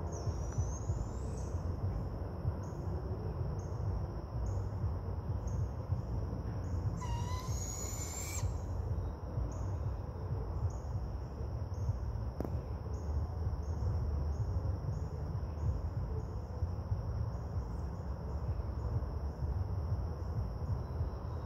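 Barred owl calling, over a steady high insect drone with pulses repeated about once a second. A brief songbird phrase comes about seven seconds in, and a low rumble runs underneath.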